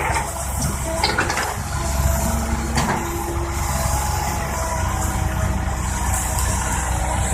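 Heavy diesel engine running steadily, with a couple of short knocks about one and three seconds in.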